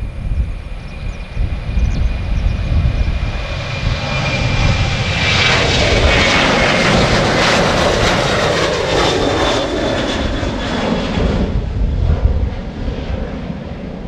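Boeing 737-800's CFM56-7B jet engines at takeoff power as the airliner rolls, lifts off and climbs out. A steady rumble with a thin high whine, loudest from about five to eleven seconds in, then dropping off as it climbs away.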